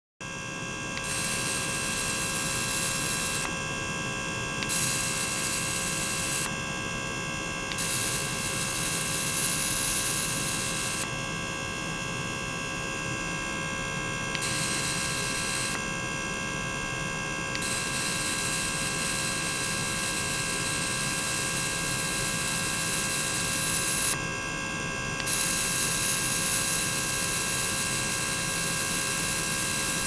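Small water-circulation pump running with a steady hum of several fixed tones while its outflow pours into a stainless-steel tank. A hiss switches on and off every few seconds over the hum, louder while it is on.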